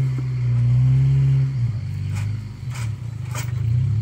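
Opel Frontera 4x4's engine running at low revs on a rough off-road track. The steady drone turns uneven and drops a little about halfway through, and three sharp knocks follow, a little over half a second apart, near the end.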